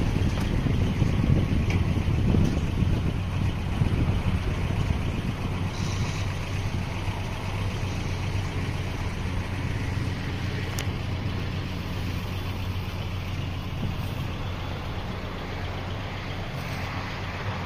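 Pickup truck engine running at a low, steady hum as the truck moves slowly along a dirt track, growing slightly fainter as it pulls away.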